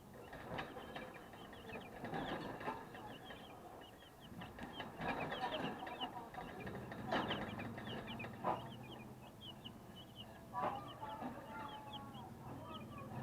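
A flock of 12-day-old broiler chicks peeping, many short high chirps overlapping without a break. Several sharp knocks cut through, the loudest about 7 and 8.5 seconds in, with a low steady hum joining about halfway through.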